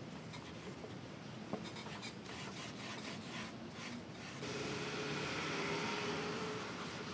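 Fine steel wool wet with mineral spirits scrubbing back and forth over a stripped wood door panel, a quick run of scratchy rubbing strokes that washes off the last stripper residue. About four seconds in it gives way to a smoother wiping sound, with a faint steady hum behind it.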